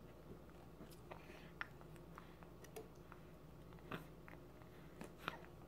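Baby mouthing and sucking on a whole strawberry: faint wet mouth clicks, scattered about once a second, the strongest about four and five seconds in.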